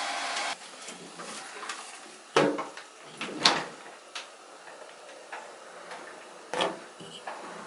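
Hand-held hair dryer blowing, switched off about half a second in. Then a quiet stretch with scattered knocks and clatters of things being handled in a tiled bathroom, three of them louder, about two and a half, three and a half and six and a half seconds in.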